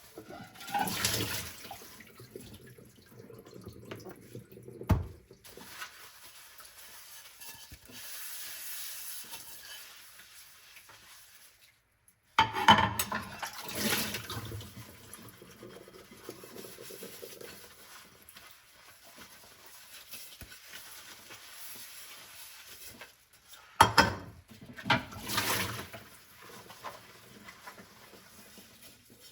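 Hand-washing dishes at a sink: tap water running in several short spells over the dishes, with knocks and clinks of dishware in between.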